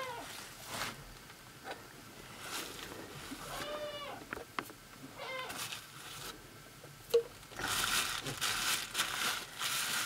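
Goats bleating in three short calls, the first at the very start and two more about four and five seconds in. A sharp tap sounds about seven seconds in, followed by a plastic bag crinkling and rustling in the hands until the end.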